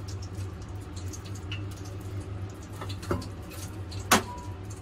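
Light crackling and ticking from freshly deep-fried tofu draining its oil, over a steady low hum, with a sharp click about four seconds in.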